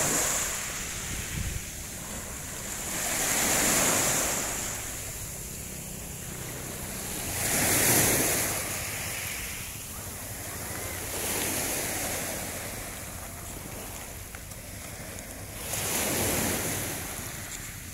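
Small waves breaking and washing up on a sandy, shelly shore, the surf rising and falling in a swell about every four seconds.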